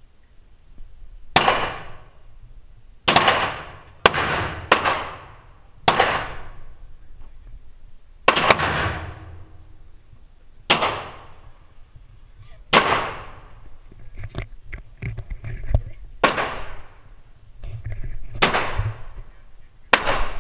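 AR-15 rifle fired in slow single shots, about eleven over twenty seconds at an uneven pace, each shot ringing out in the echo of an indoor range.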